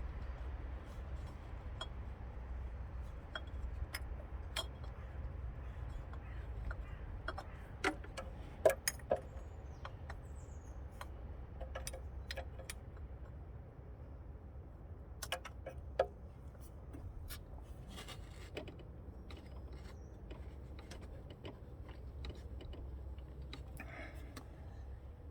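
Scattered light metallic clicks and clinks of tools and parts being handled, with a few sharper knocks about a third of the way in and again past the middle, over a steady low rumble.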